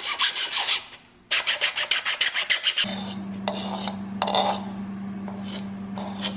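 A sanding sponge rubbed in quick back-and-forth strokes over a 3D-printed PLA helmet, with a short pause about a second in. About three seconds in, a small handheld power tool starts and hums steadily, with a scraping burst each time it meets the plastic, until the sound cuts off suddenly.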